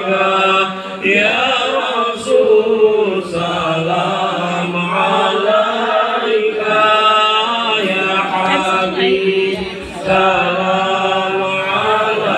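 Islamic devotional chanting in Arabic: long, melodic sung lines broken by short pauses for breath.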